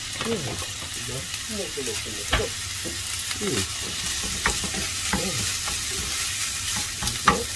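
Fried rice sizzling in a nonstick frying pan with soy sauce just poured in, while a wooden spatula stirs and scrapes through it, with a few sharp knocks of the spatula against the pan.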